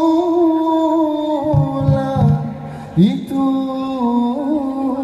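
Dikir barat singing: a single voice sings a long, ornamented phrase that holds and slowly slides down in pitch, then starts a new phrase with an upward scoop about three seconds in. A low note sounds briefly beneath it around two seconds in.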